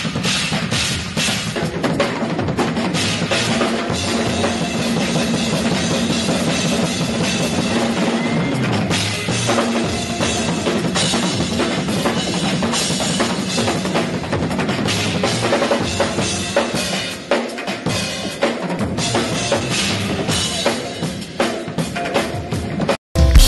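Drum kit played solo: dense, rapid strokes on snare, toms and cymbals over kick drum. It cuts off suddenly near the end.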